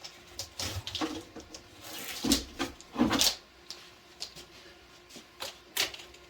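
Irregular clicks, knocks and rattles of objects being handled, with two louder clunks about two and three seconds in.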